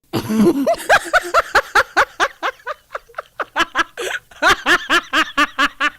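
A person laughing hard in a quick run of short ha-ha bursts, about four to five a second.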